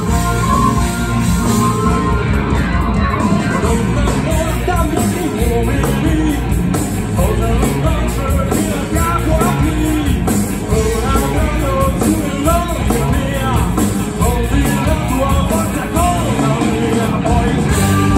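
Live rock band playing loudly: electric guitars, bass and drums, with a male lead voice singing over them from about two seconds in.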